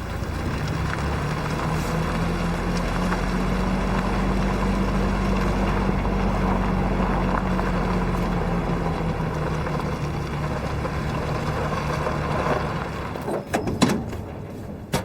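Military truck engine running steadily, then dying away about twelve seconds in, followed by a few sharp knocks near the end.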